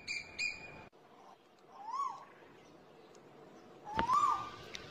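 Asian koel calling twice, about two seconds apart, each call a single note that rises then falls. A few short high pips sound at the very start.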